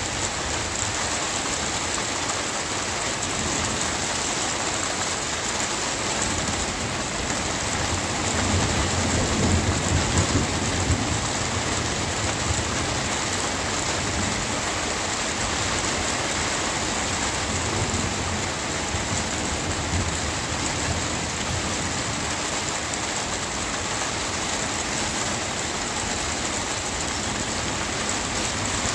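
Steady rain falling, with a low rumble of thunder that swells and fades about a third of the way through.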